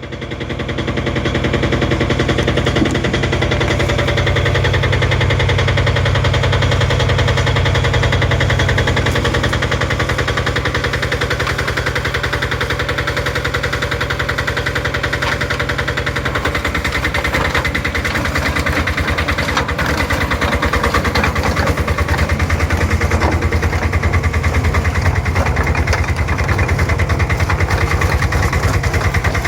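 Engine of a YFW2000DE steel-track crawler dumper running steadily with a fast chugging firing beat. Its low note shifts slightly about halfway through.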